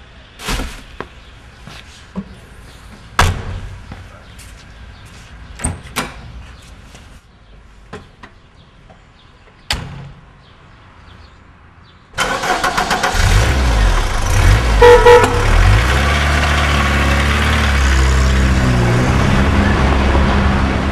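Scattered knocks and thumps, then about twelve seconds in a car engine starts and keeps running. A few seconds later come short car-horn toots, a honk to call someone out from inside.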